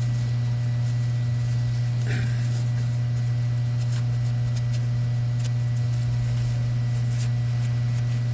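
Steady low electrical hum at an even level, with a few faint light ticks and a small brief scuff about two seconds in.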